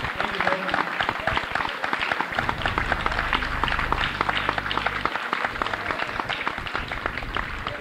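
Audience applauding, the clapping slowly thinning out toward the end.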